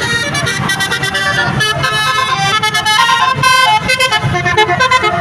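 Bus basuri horn, a telolet-style multi-tone air horn, playing a quick melody of short notes that step up and down in pitch, several tones sounding together.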